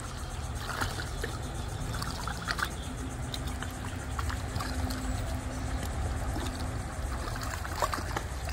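Water splashing and trickling as a crowd of alligators jostles at the surface for food pellets, with scattered small splashes over a low steady rumble.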